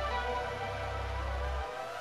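Background music with sustained, slowly gliding tones over a steady bass; the bass drops out briefly near the end.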